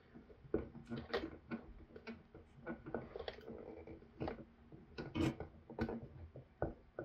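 Needle-nose pliers gripping and tugging a rubber cable bushing into the plastic housing of a 12-volt bilge pump: faint, irregular small clicks and handling noises as the bushing is worked into its seat.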